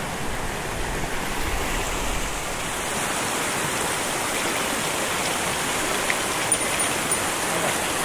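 Mountain stream water rushing steadily past, a dense even hiss, with a low rumble in the first couple of seconds.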